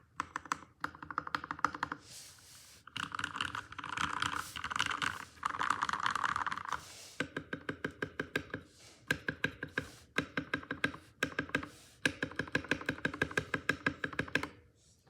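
Modded RK61 mechanical keyboard with lubed Gateron Milky Yellow linear switches being typed on. Fast runs of keystrokes blur together for the first half, then come as separate, evenly paced key presses, which stop just before the end.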